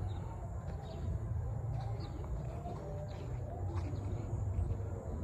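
Birds calling faintly over a steady low rumble, with a few short high chirps.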